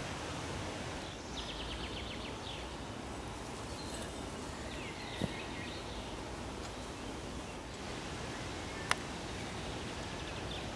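Steady outdoor background noise with a few faint bird chirps, and two brief faint clicks, one about five seconds in and one near nine seconds.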